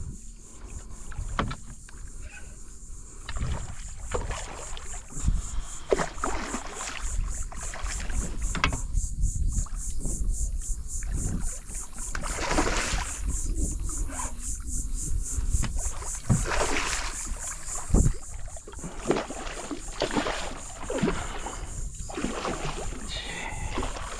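Irregular splashes and knocks of water and gear around a kayak, over a low rumble of wind on the microphone.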